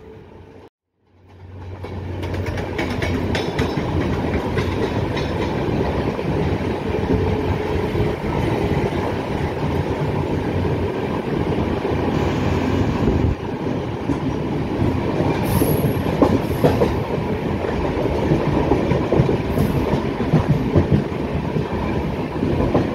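Moving passenger train coach heard from its doorway: a steady rumble of wheels running on the track with rail-joint clacks, and a few brief high wheel squeals in the second half. It fades in after about a second of near silence.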